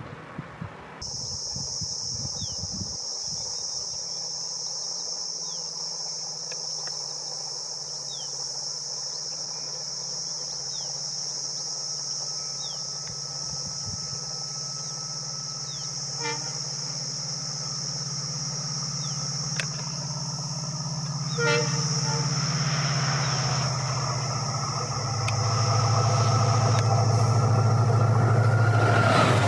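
EMD WDP4D diesel locomotive approaching at speed, its two-stroke 16-710 engine growing louder toward the end, with its horn sounding in the second half. A steady high-pitched hiss runs underneath.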